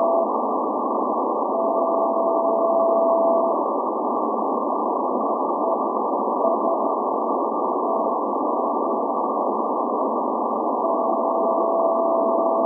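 Morse code (CW) signal from the Greek maritime coast station SVO on 8424 kHz shortwave, received on a software-defined radio as a tone of about 700 Hz inside a narrow band of static hiss. The tone holds steady for about two seconds early on and again near the end, with faint, broken short keying in between.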